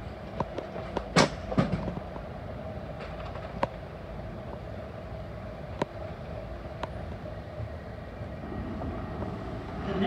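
Docklands Light Railway train standing at the platform with a steady hum, and scattered sharp clicks and knocks, the loudest a pair just over a second in.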